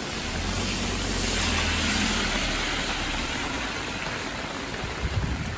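A car drives past on a rain-soaked street. Its engine rumble and the hiss of its tyres through standing water swell about two seconds in and then fade as it moves away, over steady heavy rain.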